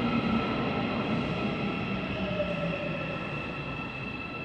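Busan Metro Line 3 subway train slowing to a stop at the platform, its motor whine sinking in pitch and the running noise fading.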